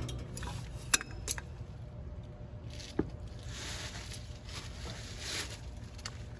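A few small clicks, then rustling and scraping, from hands and tools working at a heat-pump compressor's terminals and wiring, over a steady low hum.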